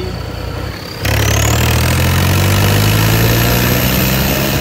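John Deere tractor's turbocharged diesel engine under way. About a second in, the throttle opens and the engine gets suddenly louder, with a thin high turbo whistle rising slowly above it.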